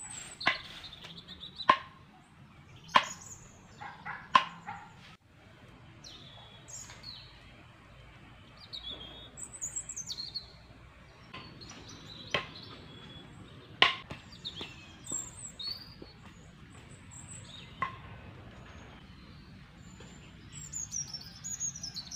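Small birds chirp and call throughout in short, quick notes that rise and fall. In the first few seconds there are several sharp scratchy strokes from a stick broom sweeping bare dirt. A few more sharp clicks come later.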